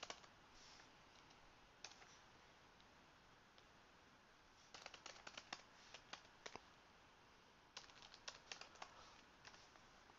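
Faint computer keyboard typing: short runs of quick keystrokes with pauses between, the longest runs about five and eight seconds in.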